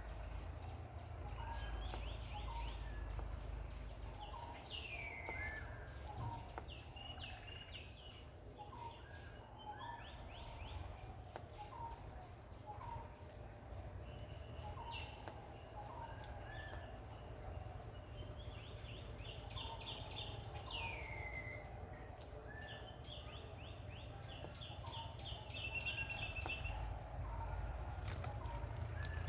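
Outdoor ambience of several birds calling: repeated short chirps, a few descending whistles and quick rattling trills, over a steady high hum and a low rumble.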